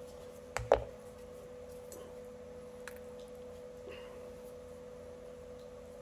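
Two sharp clicks close together about half a second in, then a few faint taps, as metal brake parts and tools are handled. Under them runs a steady humming tone.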